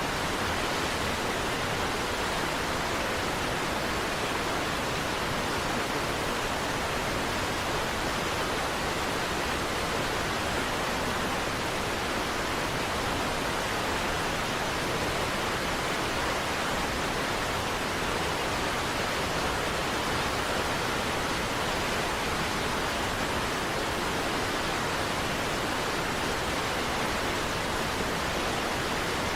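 Niagara Falls, a large waterfall: water rushing steadily without a break, an even hiss and rumble at one constant level.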